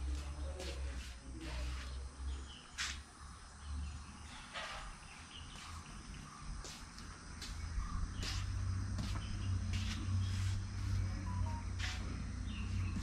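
Insects droning steadily at a high pitch with short bird chirps every second or so, over a low rumble that grows louder about eight seconds in.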